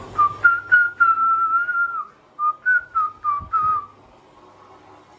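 A person whistling a short tune: a few quick notes, one long held note, then more short notes, stopping about four seconds in.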